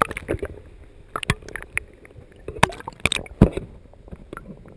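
Sea water heard through a camera held just under the surface: muffled sloshing and gurgling with irregular knocks and clicks against the camera, the loudest about three and a half seconds in.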